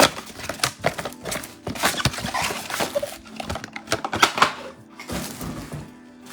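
Trading card blaster boxes being handled and opened: crinkling wrapper, cardboard scraping and small knocks, thinning out about five seconds in, over background music.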